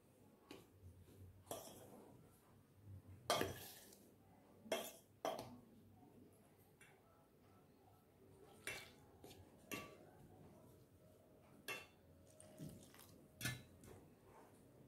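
A steel spoon clinking and scraping against a stainless steel bowl while flour batter is stirred with water: faint, scattered taps, the loudest a few seconds in.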